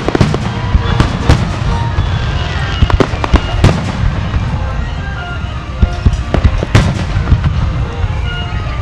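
Fireworks display: aerial shells bursting one after another, many sharp bangs over a continuous low rumble, with some of the loudest reports a little past a third of the way in and again near the three-quarter mark.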